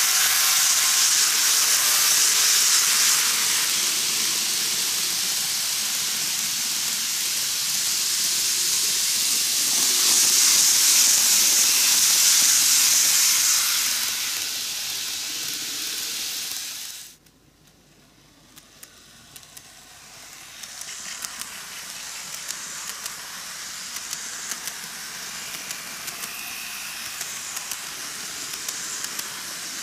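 N-gauge model electric trains running on track: a steady, high hissing rumble of small wheels and motors as a train passes close by. It cuts off suddenly partway through, then slowly builds again as another train approaches, with a run of light clicks from the rail joints.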